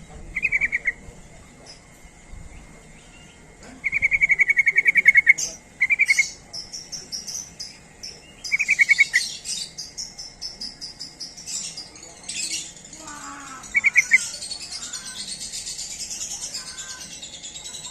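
Yellow-vented bulbuls (trucukan) calling: short rapid bubbling trills, one held for over a second, then a dense, high-pitched chattering chorus through the second half.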